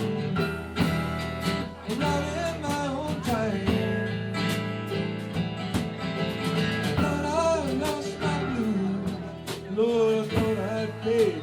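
Live country band music: guitars playing under a melodic lead line that bends up and down in pitch.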